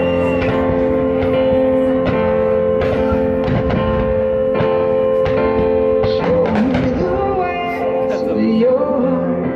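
Music with a singing voice over long held notes and a regular beat: the soundtrack of a music-synchronised fireworks show.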